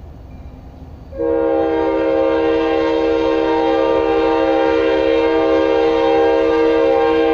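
An approaching train's locomotive air horn sounds one long, unbroken blast of several notes together, starting about a second in.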